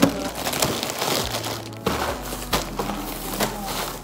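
Plastic wrappers of instant noodle packets crinkling and rustling as they are handled and stacked, with many sharp crackles.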